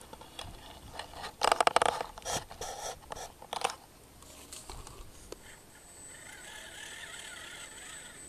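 A loud scraping clatter starts about one and a half seconds in and lasts about two seconds. After it, the steady whine of a radio-controlled scale crawler's small electric motor and gears builds as the truck crawls over the mud.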